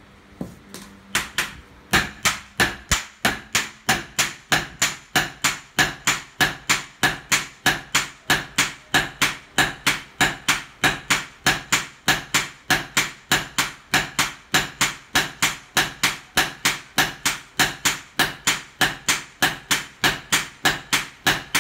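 Two smiths' hand hammers striking a red-hot gyuto knife blade on a steel anvil post in turn, a steady metallic ringing clang about three times a second. After a few scattered blows in the first two seconds the rhythm settles and runs evenly.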